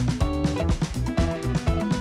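Background music with a steady beat and held instrumental notes.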